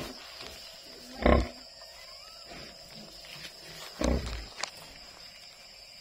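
A nursing sow grunting: two short, low grunts, about a second in and again about four seconds in, while her newborn piglets suckle.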